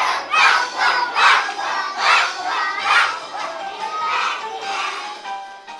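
A group of children shouting together in several loud bursts over the first three seconds, then quieter, with music coming in near the end.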